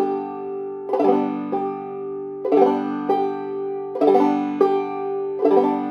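Open-back five-string banjo played clawhammer style, slowly: a downward brush across the strings and, about half a second later, a lighter thumb pop on a single string. The pair repeats about every second and a half, and the open strings ring on between strokes.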